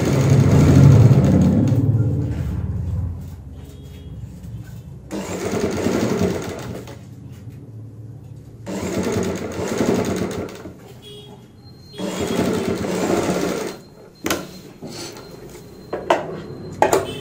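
Sewing machine stitching a patch onto a garment front in four runs of two to three seconds each, with short pauses as the cloth is repositioned. A few sharp clicks come near the end.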